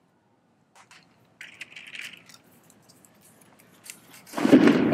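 A liquid-nitrogen bottle bomb bursting inside a bucket of ice water: a sudden muffled bang with splashing, about four seconds in, after a few faint clicks and a short hiss.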